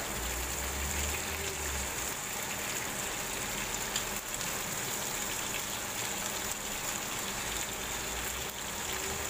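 Chicken pieces sizzling steadily in oil in a nonstick frying pan, cooked through, while being turned with tongs, with a few faint clicks from the tongs.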